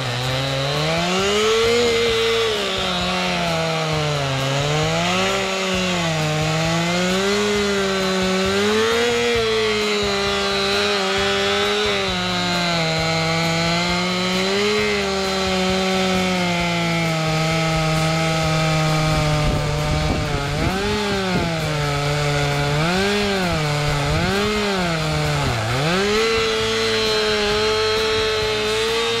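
Stihl chainsaw's two-stroke engine cutting the felling notch into an oak trunk. The engine pitch rises and falls as the chain bites into the wood and bogs under load, with several quick deep dips near the end.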